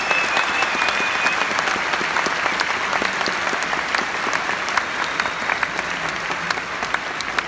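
A large theatre audience applauding, with dense, continuous clapping. A high steady tone sounds over the clapping in the first second and a half.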